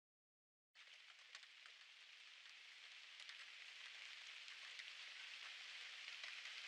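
Faint crackling hiss with scattered small clicks, like rain on a surface, fading in after a dead-silent start.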